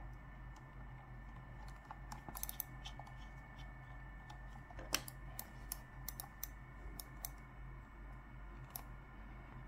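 Scattered light clicks and taps at an uneven pace, with one sharper click about halfway through, over a low steady hum.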